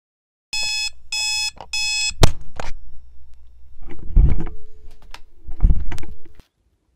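Electronic alarm clock beeping in three quick bursts, then a sharp click followed by two heavy thumps with rustling, cutting off suddenly near the end.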